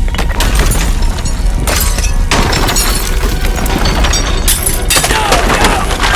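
Loud, dense crashing and rumbling sound effects, with a sustained low rumble underneath.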